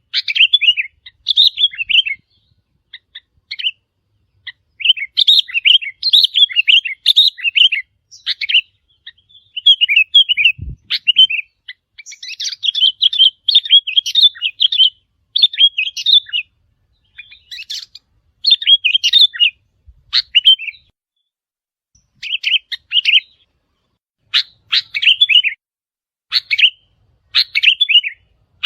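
Sooty-headed bulbul song: short, bubbly phrases of quick chirping notes, repeated again and again with brief pauses between them.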